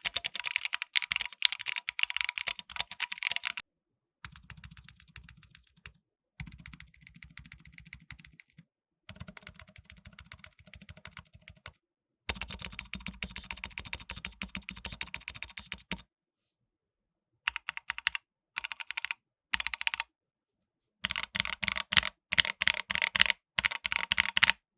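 Fast typing on an AKKO MOD005 mechanical keyboard with AKKO Jelly Black linear switches and AKKO Black and Silver keycaps: a rapid run of key clicks. The typing comes in several separate stretches broken by abrupt silences, and the last ones are short bursts.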